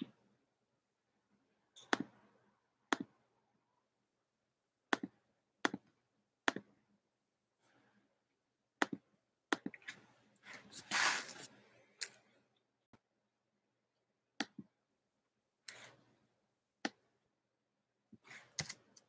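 Irregular sharp clicks and small knocks, about fifteen over the stretch, with a short rustling, handling noise about ten seconds in.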